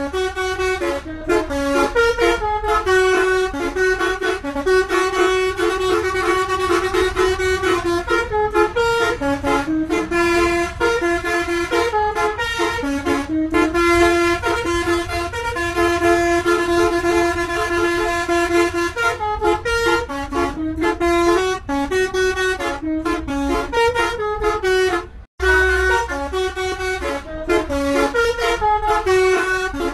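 Indonesian bus "telolet" multi-tone horn played as a melody from a keyboard (pianika) controller: a continuous run of held horn notes stepping up and down in pitch, over a low rumble. The notes break off for a moment about five seconds before the end, then carry on.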